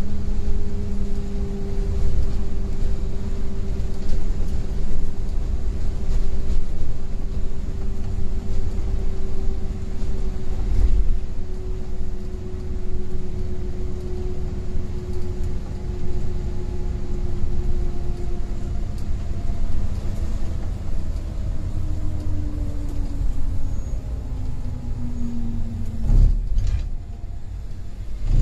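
Scania semi-sleeper coach running on the road, with a steady low engine and road rumble. In the second half the engine note slowly falls in pitch as the revs drop, and there is a thump near the end.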